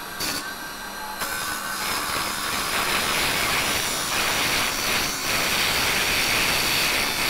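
A makeshift chisel cutting into a soft timber blank spinning on a 350-watt mini wood lathe: a steady scraping cut that starts about a second in and cuts off sharply at the end.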